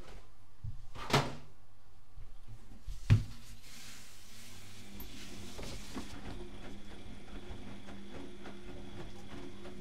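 Bauknecht WAK 6950 washing machine running early in its Easy-Care 60°C cycle: two knocks about two seconds apart, then a steady motor hum sets in about four seconds in, with a brief hiss.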